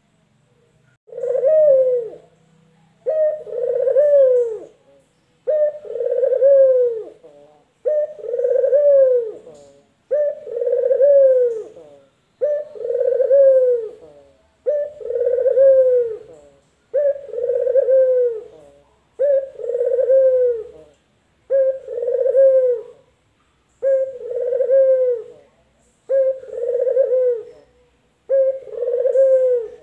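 Male collared dove (puter) cooing in a long, even series, about one coo every two seconds; each coo arches and falls away in pitch.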